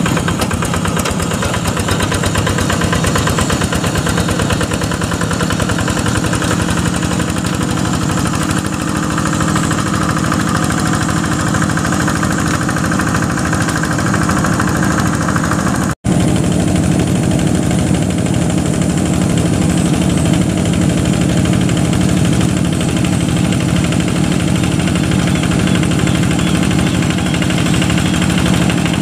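Single-cylinder Yanmar diesel engine of a two-wheel hand tractor running steadily with a rapid, even beat, under load as the tractor pulls a moldboard plow. The sound drops out for an instant about sixteen seconds in.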